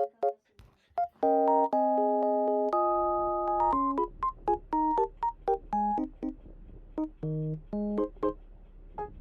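Background music: a light, bouncy keyboard tune of short plucked notes and held chords, with a faint low hum underneath from about three seconds in.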